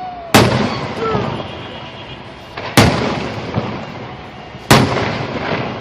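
Aerial fireworks shells bursting: three sharp booms about two seconds apart, each trailing off in a rumbling echo.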